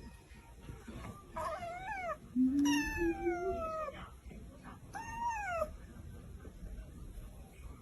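A cat meowing three times, each call sliding down in pitch; the middle call, about a second long, is the loudest.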